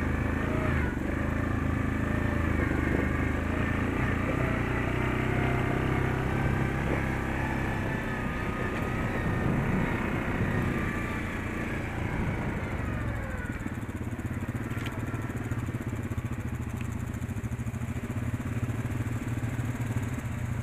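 Yamaha Grizzly ATV engine running under way. It eases off about two-thirds of the way through as the quad slows and settles to idle.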